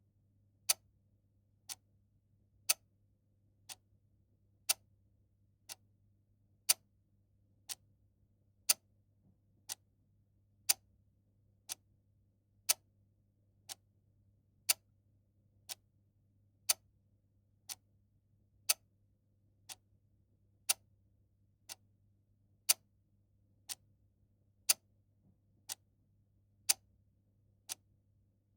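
Clock ticking once a second, the ticks alternating loud and soft in a regular tick-tock.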